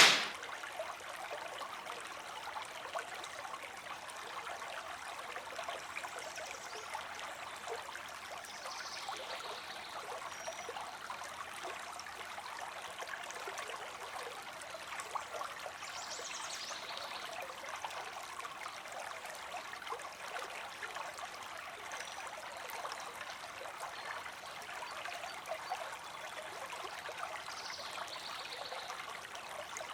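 Creek water streaming and trickling, a steady even rush with no breaks.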